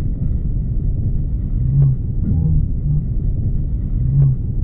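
Steady low rumble from the crashed Proton-M rocket's wreckage burning on the ground, with a couple of faint short pops.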